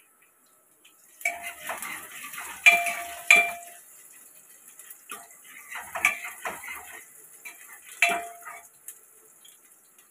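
Steel spoon scraping and clanking against the inside of an aluminium pressure cooker while stirring onions frying in ghee, the pot ringing at each knock. It starts about a second in, with the loudest clanks around three seconds in and another sharp knock about eight seconds in.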